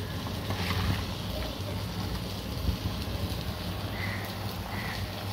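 Thick crab curry bubbling at the boil in an aluminium pot on a gas stove, stirred with a steel ladle, over a low steady rumble.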